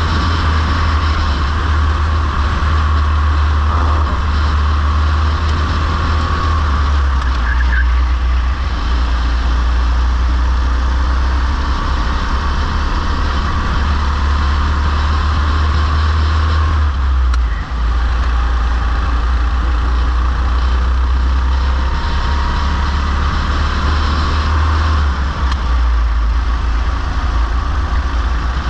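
Racing go-kart engine running hard, heard from on board the kart. Its note rises and falls gently with the throttle through the corners over a heavy low rumble, with a brief dip about two-thirds of the way through.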